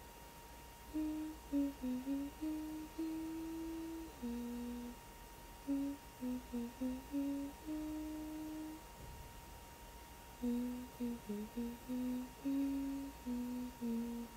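A woman humming a slow wordless melody in phrases, pausing briefly twice, over a faint steady high whine.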